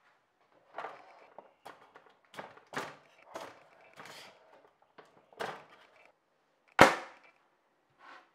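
Resin 3D prints being pried off the printer's metal build plate with a scraper: a string of short scrapes and pops as the parts come free, with one sharp, loud crack about seven seconds in.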